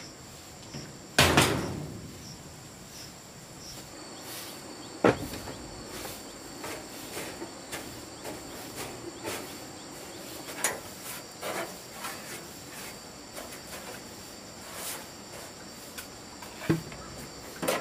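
Insects chirring steadily at a high pitch, with scattered knocks and clatters of objects being handled, the loudest a little over a second in and another about five seconds in.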